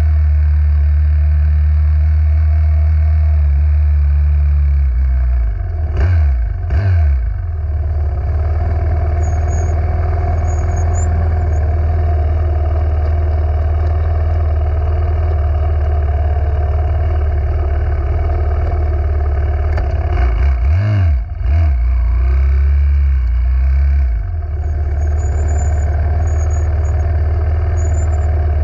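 Racing minibike running at speed, with a heavy, steady low rumble of wind on the microphone that breaks up briefly twice.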